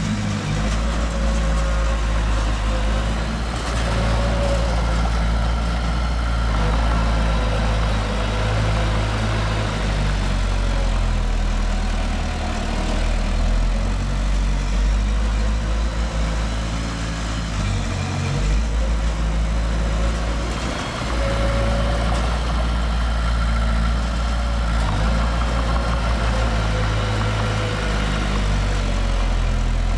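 Heavy diesel engine of earthmoving machinery running steadily, with a faint whine that comes and goes above it.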